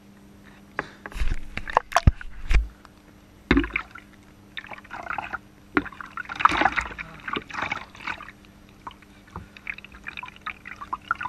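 Shallow bath water splashing and sloshing in a bathtub as hands scoop it over a puppy, in irregular splashes with a few dull knocks in the first few seconds. Near the end water streams and drips off the puppy as it is lifted out.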